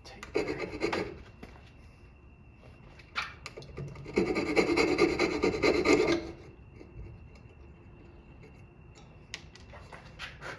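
A hand tool rubbing and scraping against wood in bursts: about a second of strokes near the start, a single short stroke about three seconds in, then two seconds of quick repeated strokes from about four to six seconds in.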